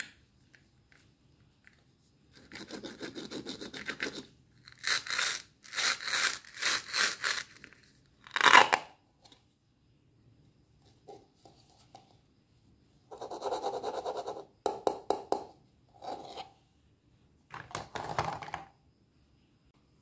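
Hook-and-loop fastener pads on the halves of a plastic toy kiwi ripping apart and rubbing: a series of crackling rips in two groups with a quiet gap between, the loudest rip a little before halfway.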